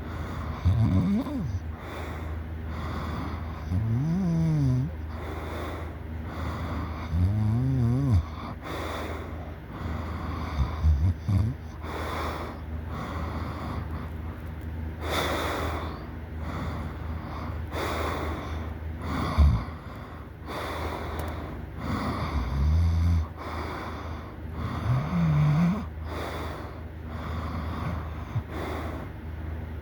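A person snoring loudly in sleep: short snores, each rising and falling in pitch, come at irregular intervals of a few seconds.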